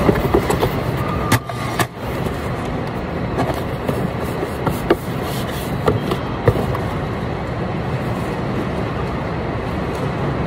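Steady mechanical background noise of a warehouse pack station, with scattered short knocks and taps of a cardboard box being handled and packed, most of them in the first seven seconds.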